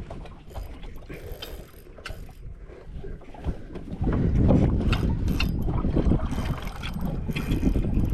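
Fishing reel clicking and rod-handling noise while fighting a tarpon on light tackle. A louder low rumble joins about four seconds in.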